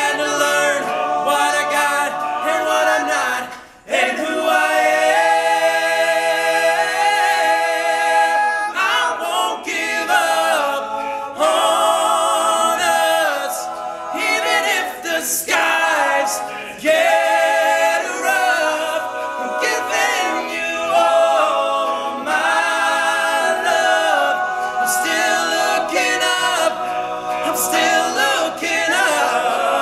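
All-male a cappella group singing in close harmony, several voices holding chords together, with a brief break about four seconds in before they come back in together.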